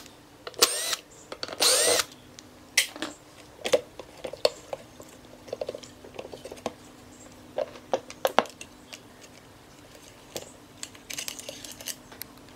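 A power drill runs in two short bursts in the first two seconds, each one speeding up and slowing down. Scattered clicks and knocks follow, with a short busy patch of them near the end.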